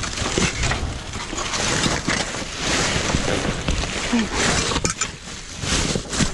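Steady crunching and rustling of dumpster debris, broken glass, cardboard boxes and bags, shifting under someone climbing through the pile.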